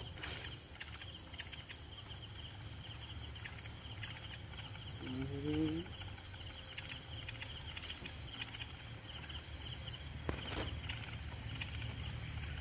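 Night insects chirring steadily in a rapid high pulse, over a steady low rumble. A short rising voice-like sound comes about five seconds in.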